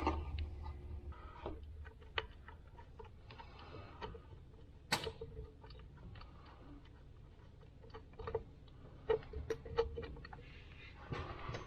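Scattered light clicks and taps, irregular rather than rhythmic, from hand tools and small metal and plastic parts being handled at the engine; the sharpest click comes about five seconds in.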